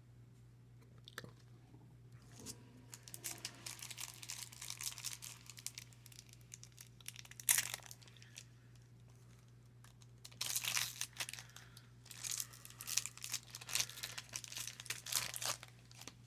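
Trading card pack wrapper being torn open and crinkled by hand, in two spells of crackling with one sharp tear near the middle.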